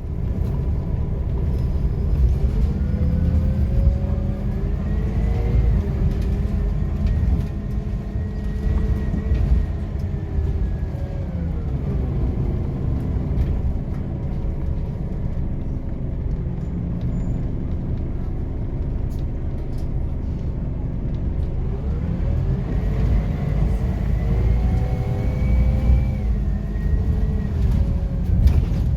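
Interior of a Scania K270UB single-deck bus on the move: a steady low engine rumble with a whine that climbs as the bus pulls away, holds, then falls as it slows, about two seconds in to twelve seconds in, and again from about twenty-two seconds to near the end.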